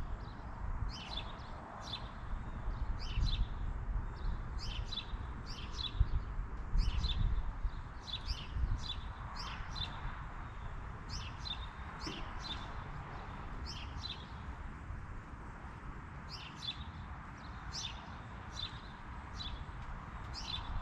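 Small birds chirping: short, sharp, high chirps in quick clusters, repeated about every second, over an uneven low rumble.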